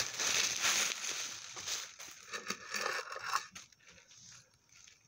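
Packaging being crumpled and crinkled by hand, dense for the first two seconds, then thinning to a few light rustles and small clicks.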